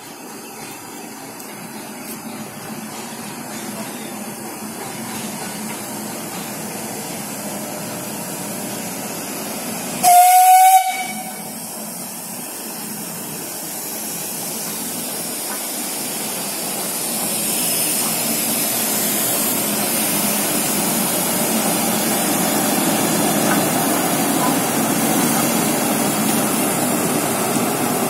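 A steam locomotive running slowly toward and past the listener, its steam hiss growing steadily louder as it nears. About ten seconds in, it gives one short, shrill whistle blast of under a second, the loudest sound.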